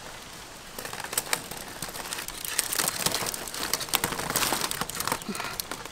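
Dense rustling and crackling with many small sharp clicks. It starts about a second in and thins out near the end.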